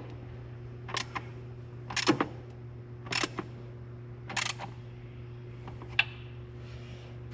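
Stubby ratchet clicking in short bursts, about one a second, as intake manifold bolts are given a light first tightening pass. A steady low hum runs underneath.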